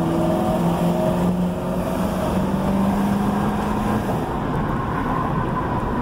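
Ford Crown Victoria Police Interceptor's V8 engine, heard from inside the cabin under steady road and tyre noise. The engine note rises slowly for about four seconds as the car accelerates, then fades into the road noise. The new front hub bearing runs quiet, with no clacking or grinding.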